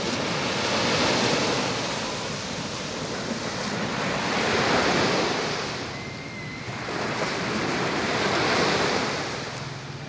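Sea surf washing onto the shore, its rushing noise swelling and falling back about three times.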